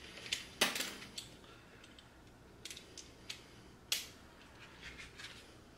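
A few light, scattered clicks and clacks of hands handling an outlet receptacle and a screwdriver, the sharpest just under a second in and another about four seconds in.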